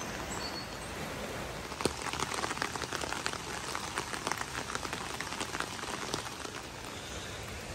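Light rain pattering on leaves and foliage: a steady hiss, with many irregular drop ticks from about two seconds in.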